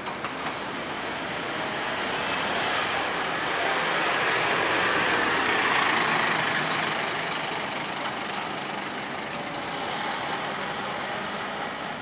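SBS Transit single-deck city bus pulling away and driving close past, its engine and tyre noise building to a peak about halfway through and then fading as it moves off.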